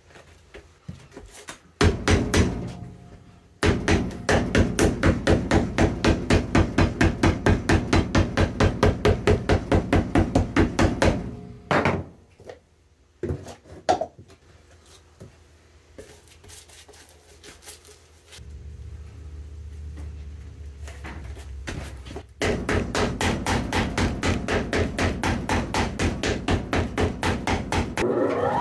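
Cobbler's hammer tapping down cork filler on the bottom of a boot on a jack, in quick even strikes about four a second. Two long runs of hammering, with a few single knocks between them.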